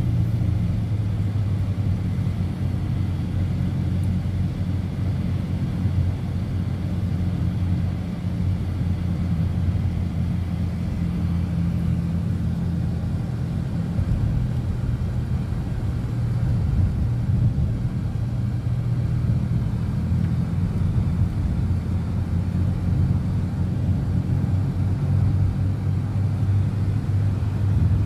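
Steady low rumble of a BMW's engine and tyre noise heard from inside the cabin while driving.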